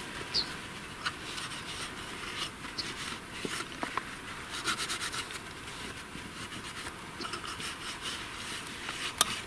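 A spoon scraping and clicking in a pot as potato stew is served, over the crackle of a small campfire. The light clicks are scattered, with a quick cluster about halfway through and one sharp click near the end.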